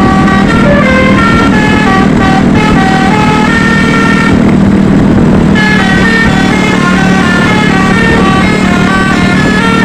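Bus 'telolet basuri' multi-tone musical horn playing a melody of short held notes that step up and down in pitch, over a steady low hum. It is loud, and the notes pause for about a second about four and a half seconds in before starting again.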